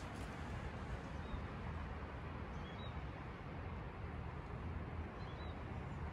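Outdoor background noise with a steady low rumble, and a bird chirping briefly twice, near the middle and near the end.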